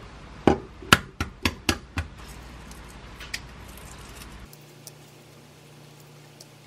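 A boiled egg tapped sharply about six times in quick succession against a hard surface to crack its shell. Later come a few faint crackles as the shell is peeled off.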